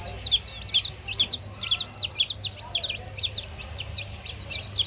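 A brood of baby chicks peeping nonstop, many overlapping high cheeps that slide downward in pitch, several a second, over a faint low steady hum.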